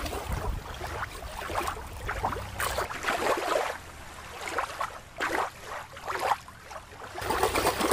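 Water lapping and splashing, with a low rumble under it for the first few seconds and a few short splashy bursts later on.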